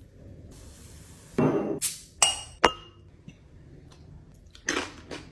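Glass or dishware clinking in a kitchen: a short scrape, then two sharp ringing clinks about two seconds in, and another handling noise near the end.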